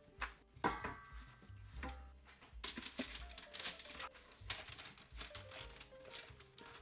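Baking parchment on a metal baking tray crinkling and rustling in irregular bursts as hands shape a soft dough roll on it, over soft background music.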